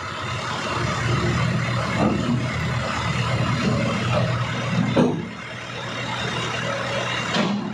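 Diesel engine of heavy equipment running steadily during the loading of a mini excavator onto a self-loader truck, with a few short rising or falling tones over the hum.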